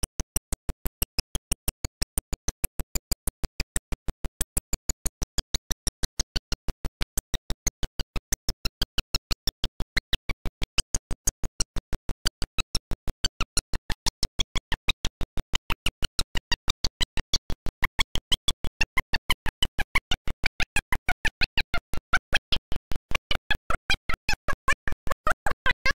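Glitched audio track: the sound is chopped into short, evenly spaced pulses about four times a second, a steady rapid stutter in which the preacher's voice can't be made out.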